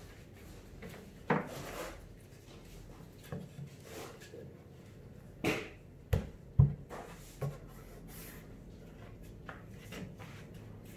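Irregular wooden knocks and bumps of plywood panels and a wooden strip being handled and set against a plywood speaker box, with a cluster of louder thumps a little past the middle.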